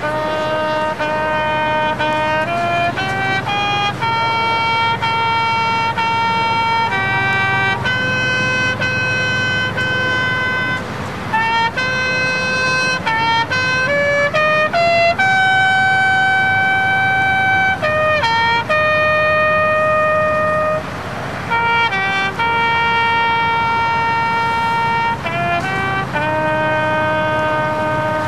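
Marching band brass playing a slow passage of long held chords, each lasting a few seconds before moving to the next, with short breaks between phrases.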